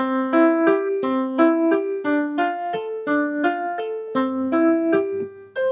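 Keyboard jingle: a bright melody of quick notes, about three a second, in short repeating figures, ending on a held note near the end.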